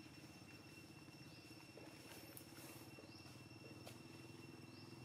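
Faint outdoor background: a steady low hum with a rapid flutter under a steady high insect drone. A short rising chirp sounds three times, about every second and a half to two seconds.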